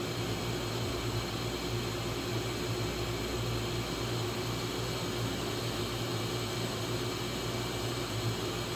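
Handheld heat gun running steadily, its fan blowing hot air onto heat-shrink tubing over a soldered wire splice, with a constant motor hum under the rush of air.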